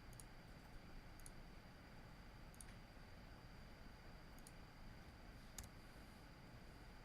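Computer mouse clicking, five sharp clicks a second or so apart over quiet room tone with a faint steady high whine.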